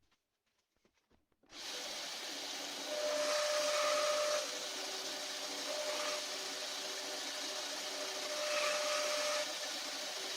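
An electric power tool starts about a second and a half in and runs steadily, working the wooden handle scales; its hum shifts slightly in pitch and level a few times as the work is pressed against it.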